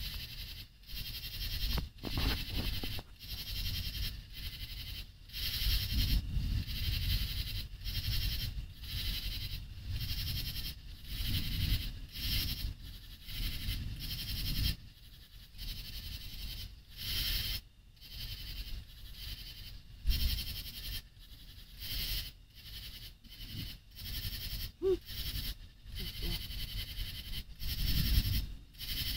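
A night chorus of frogs calling in a rapid pulsing rhythm, with a low rumble underneath and one brief higher call about 25 seconds in.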